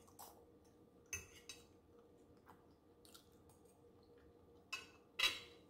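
A metal fork clicking and scraping against a ceramic plate as food is scooped up, with soft chewing in between. There are a few sharp clicks, the loudest near the end.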